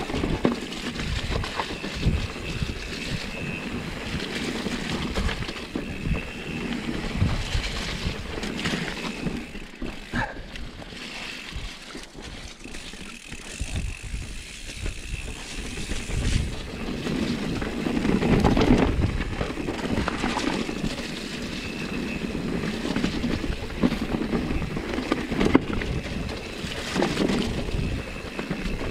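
Irregular thumps and rustling with wind noise on the microphone, as from a camera carried by someone walking on a muddy trail.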